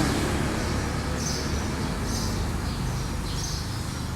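A bird chirping repeatedly, short high calls about once a second, over a steady low hum.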